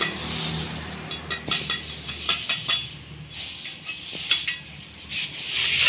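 A broom sweeping the ground in short scratchy strokes, with light clicks and taps between them.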